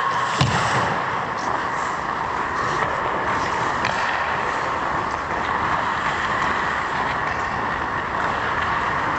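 Steady rushing ambient noise of an indoor ice hockey arena during play, with a few faint clicks near the start.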